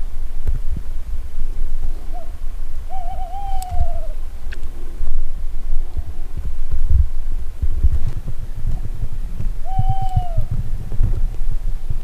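Dog whining twice: a drawn-out, wavering whine that slides down in pitch, then a shorter one near the end. Under it runs a constant low, uneven rumble with thuds.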